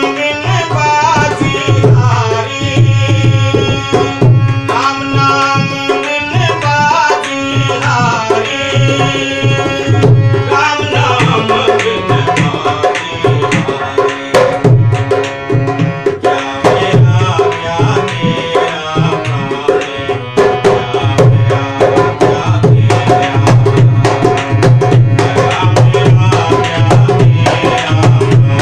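Tabla playing a steady, busy rhythm with deep bass-drum strokes under a held melodic line, an instrumental passage of shabad devotional music.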